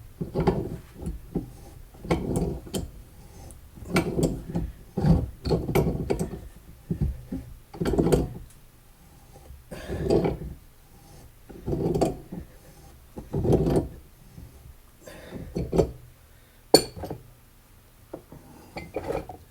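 Pipe wrench working a seized mower-deck spindle shaft round in its housing: repeated short creaking, grinding strains about every two seconds, with scattered clicks and one sharp click near the end, as the rusted shaft is turned and lifted.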